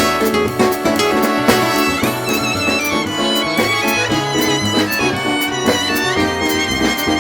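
A song's backing track with a melody line, played along on a drum kit: frequent drum and cymbal hits over the music.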